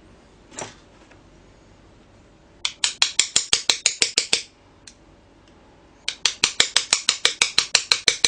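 Bump key in an oval pin-tumbler cylinder being struck with rapid light taps, about ten a second, in two runs: a short one a few seconds in and a longer one from about six seconds in. The lock, fitted with high-security anti-bump pins, does not bump open.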